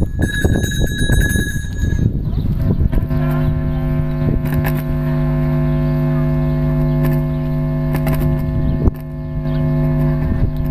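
A show-jumping start bell rings for about two seconds, the signal for the rider to begin the round. About a second later a steady low droning tone sets in and holds, breaking off briefly once near the end.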